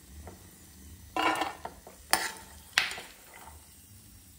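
Metal slotted spoon scooping fried almonds, cashews and walnuts in a stainless steel frying pan: a short rattle of nuts about a second in, then two sharp metal clinks a little over half a second apart.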